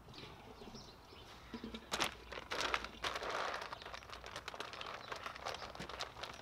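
A clear plastic bag of mushroom spawn crinkling and rustling as it is handled and the spawn is shaken out over the top of a log, starting with a sharp crackle about two seconds in.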